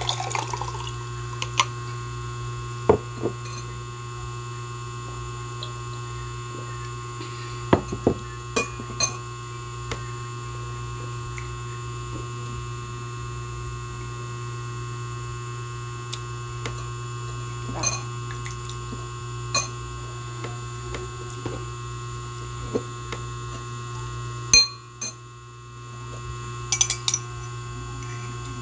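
Steady electrical hum, with liquid pouring into a drinking glass for about the first second, then scattered clinks and taps of a spoon against the glass. The hum drops away briefly near the end.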